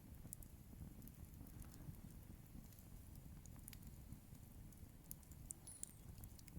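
Bonfire burning quietly, with faint, scattered crackles and pops of burning wood.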